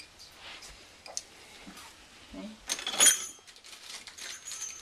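Christmas tree ornaments clinking and jingling as they are handled, light scattered clicks with one louder ringing clink about three seconds in.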